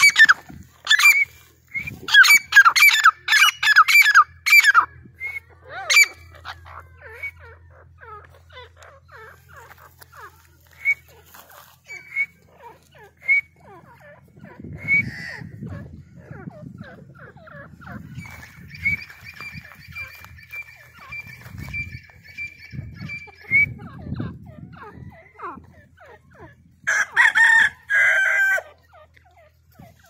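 A yard flock of chickens, a rooster and a grey francolin calling: a run of loud, quick repeated calls in the first few seconds, scattered short calls, a long held call a little past the middle, and another loud burst of calls near the end.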